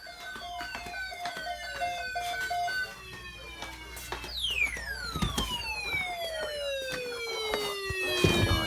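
Siren-like wails that slide down in pitch from high to low, each over several seconds, a new one starting about every four seconds and overlapping the last. Over the first few seconds a pulsing pair of steady beeping tones sounds as well.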